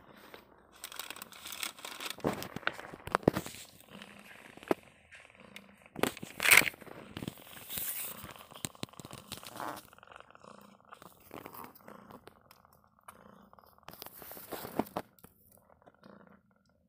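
Plastic bag crinkling and rustling in irregular crackly bursts as cats shift and paw about on it, loudest about six seconds in.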